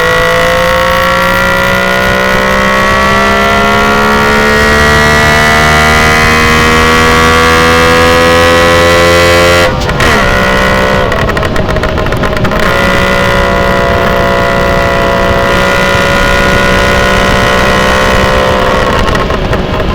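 A loud, sustained vehicle sound made of several steady tones at once, rising slightly in pitch over the first ten seconds, breaking briefly about ten seconds in, then holding steady.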